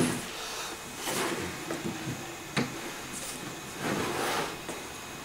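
Handling sounds of grooved aluminum composite panels being moved: a sharp knock at the start, another click about two and a half seconds in, and two short scraping swishes, about a second in and about four seconds in.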